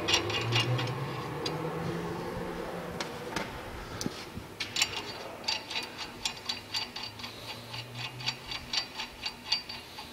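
Lug nuts with conical washers being run down the wheel studs of a new front hub by hand: light metallic ticks and clicks, scattered at first, then a quicker run of about three or four a second in the second half.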